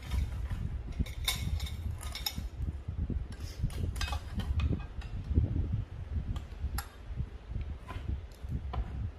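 Cleaver chopping crispy pork belly (moo krob) on a cutting board: irregular knocks of the blade with crisp crackly strokes from the skin, thickest from about one to two and a half seconds in and again around four seconds in.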